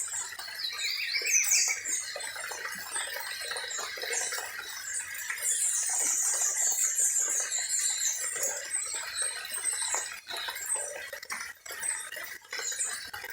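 Several birds chirping and singing in quick, high, rising and falling calls, over a steady background hiss.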